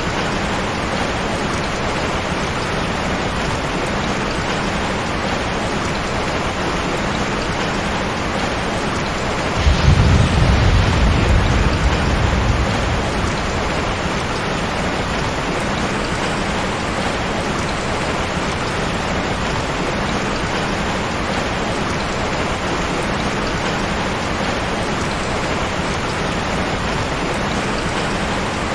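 Heavy rain falling steadily, with one roll of thunder that breaks in suddenly about ten seconds in and rumbles low for about three seconds before fading back into the rain.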